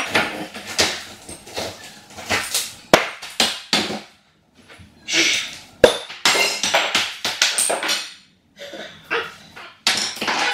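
A small hammer driving a screwdriver to chip ceramic tile off a bathroom wall. It makes irregular sharp knocks, with scraping and cracking as pieces break away.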